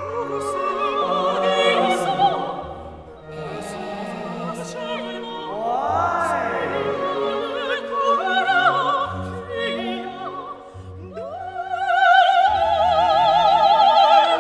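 Operatic singing with a heavy vibrato over orchestral music, the voice sliding between notes and swelling into long held notes near the end. A few sharp hits cut through it.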